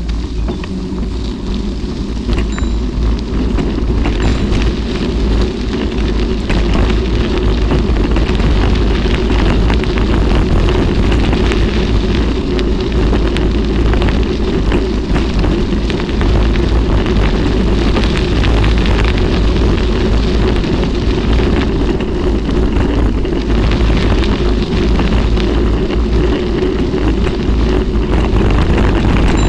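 Steady, loud wind buffeting on the microphone of a camera riding along on a bicycle, mixed with the rumble and crackle of bike tyres rolling over a loose gravel road.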